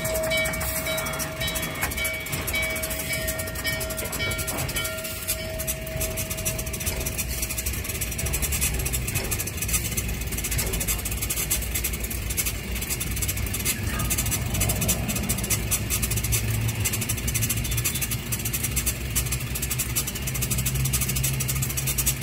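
Norfolk & Western J-class 4-8-4 steam locomotive 611 moving past at close range, making steady train noise. A steady tone carries over the first several seconds and fades out, and a low hum comes up in the second half.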